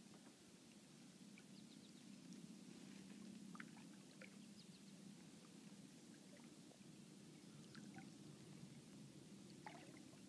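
Near silence: faint, scattered small drips and water sounds around a kayak, over a low, steady background noise.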